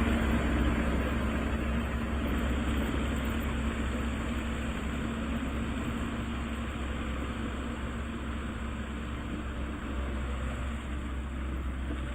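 An engine running steadily at an even pitch, with a low hum under a constant noise.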